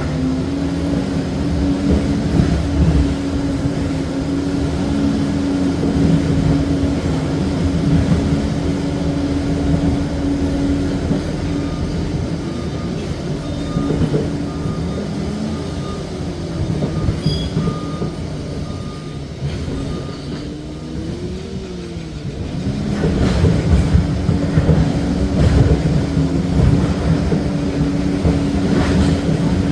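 Liebherr PR 746 crawler dozer's diesel engine running steadily under work, with clatter. About two-thirds through the engine briefly eases off and its pitch swings, then it comes back louder.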